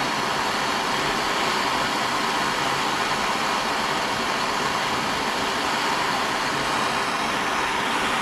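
Handheld gas torch burning with a steady flame as it heats a copper pipe joint for soldering.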